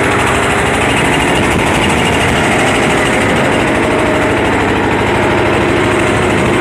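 Boat engine running steadily and loudly close by, with a fast, even firing rhythm.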